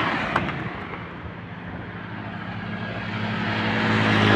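Road traffic passing close by, tyre and engine noise, with a brief click about half a second in. A vehicle's engine hum then grows steadily louder toward the end as it approaches.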